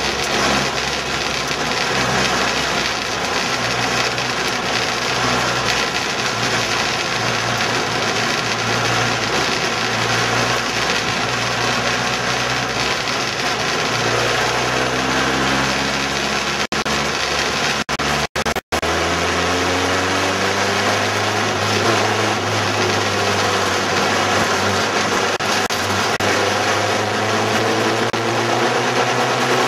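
Several race cars running laps on a short oval track, their engines steady and then rising and falling in pitch as they accelerate and pass. The sound cuts out briefly a few times a little past the middle.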